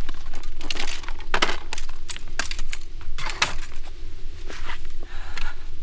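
A run of irregular sharp clicks, clatters and crackles, some in quick clusters, over a steady low rumble.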